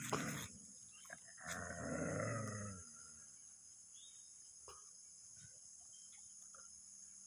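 Dogs growling and snarling at one another: a short outburst right at the start, then a longer growl about a second and a half in, lasting about a second.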